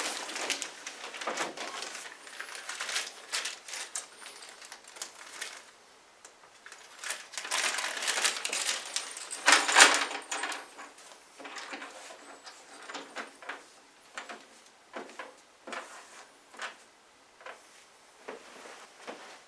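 Packing material rustling and small metal parts clicking and rattling by hand as a wall heater's mounting brackets and screws are unpacked. Irregular handling noises, busiest from about seven to ten seconds in.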